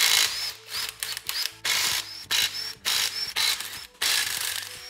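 Cordless impact wrench running in about eight short bursts, each with a short rising motor whine, as it spins out the 19 mm main bearing cap bolts of a Toyota 20R engine block.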